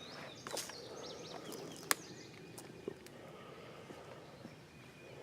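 Outdoor morning ambience with birds chirping in the background, mostly in the first second and a half, and a few sharp clicks, the loudest just under two seconds in.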